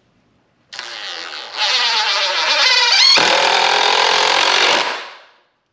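Cordless DeWalt impact driver sinking a deck screw into a pine 2x4. It starts quietly about a second in, then runs much louder for about three seconds before stopping.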